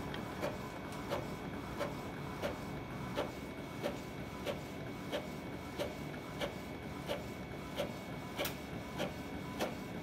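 Epson L3152 inkjet printer printing a page: a regular click about every two-thirds of a second over a faint steady whine as the sheet feeds out.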